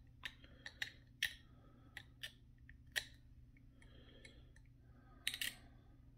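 Light, sharp clicks and taps of hard plastic miniature parts being handled in the fingers, scattered at irregular intervals, with a quick cluster of clicks about five seconds in.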